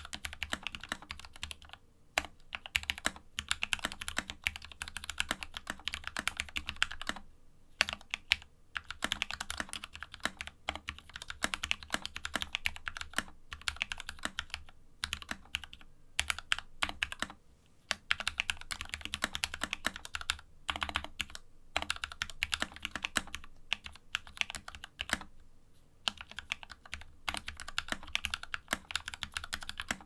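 Fast typing on a KEMOVE 61 SnowFox 60% mechanical keyboard fitted with lubed Gateron Red linear switches and modded stabilizers, set on a cloth desk mat: a rapid, continuous patter of keystrokes broken by several brief pauses between phrases.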